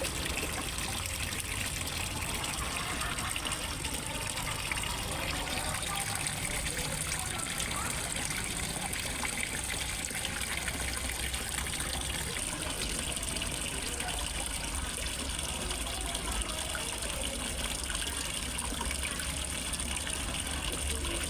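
Water running steadily into a fish pond, an even gush and trickle, with a low steady hum beneath.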